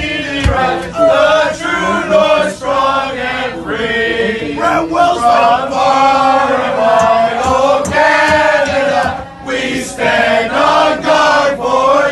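A crowd of many voices singing and chanting together in unison, loud and held on long notes, echoing in a subway car.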